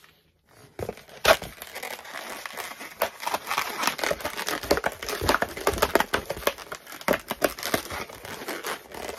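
White latex modelling balloons squeaking and crinkling as they are twisted and tied off by hand: a dense, irregular run of rubbery squeaks and crackles that starts about a second in.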